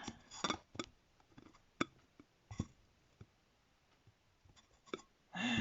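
Scattered small clicks and light taps, a few in a row and then spread out, from the internal parts of an opened tablet being handled.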